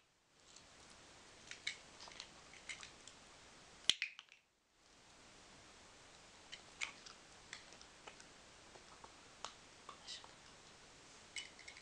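A handheld dog-training clicker giving single sharp clicks a few seconds apart, among lighter ticks and taps.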